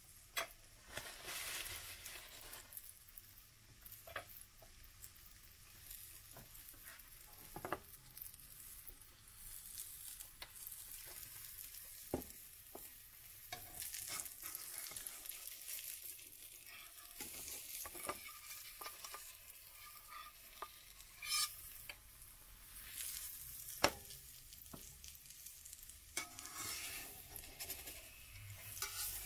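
A pancake frying quietly in a ceramic-coated frying pan, the fat around it sizzling steadily. Scattered clicks and scrapes come from a slotted metal spatula against the pan, the sharpest a little before the end.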